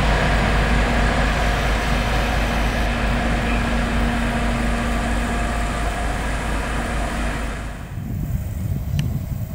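ST44 diesel locomotive's two-stroke V12 engine running under load as it hauls a long passenger train, a loud steady drone with held tones. About eight seconds in it cuts off, leaving quieter rumbling outdoor noise and a short click.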